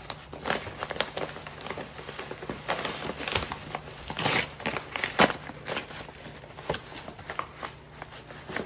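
Dogs tearing and crumpling Christmas wrapping paper and tissue paper with their mouths: irregular rustling and ripping, loudest a little past the middle.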